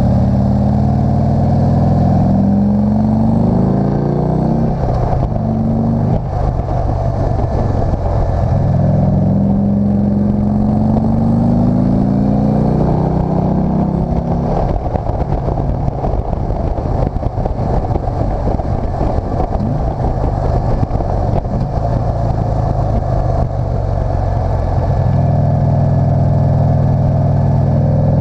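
Motorcycle engine under way on a climbing road, its note rising again and again as it accelerates. In the middle there is a stretch of steadier, rougher running mixed with wind noise.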